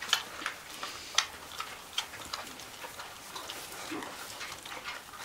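Pig eating: irregular sharp crunching clicks of chewing, a few a second, the loudest about a second in.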